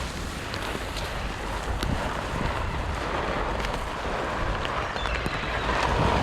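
Wind buffeting the microphone: a steady rushing noise with a strong low rumble, with a few faint clicks.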